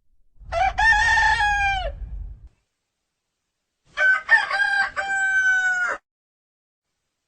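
Rooster crowing twice, each crow lasting about a second and a half with its pitch dropping away at the end.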